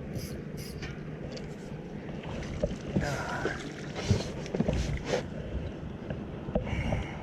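Small fishing boat on the water: a steady low rumble with scattered clicks and knocks from handling on board.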